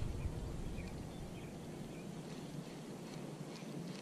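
Faint, scattered short bird chirps over a soft outdoor background, with a low rumble that drops away after about a second and a half.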